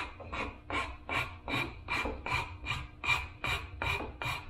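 Flat metal file rasping across the cut end of a wooden dowel rod handle in quick, even strokes, about four a second, smoothing the end.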